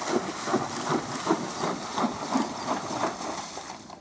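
A horse's hooves splashing through shallow water, a splash with each step at roughly three a second, fading near the end as the horse leaves the water.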